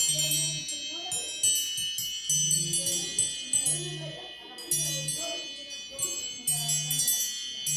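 iPhone timer alert tone: a rapid cascade of bright, tinkling chime notes ringing over one another without a break. A low buzz comes in several short pulses under it.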